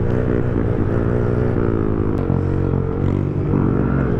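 Small motorcycle engine running steadily under throttle, its pitch shifting slightly as the speed changes.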